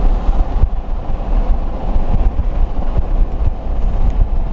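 Wind buffeting the microphone in a loud, uneven low rumble, with vehicle noise underneath.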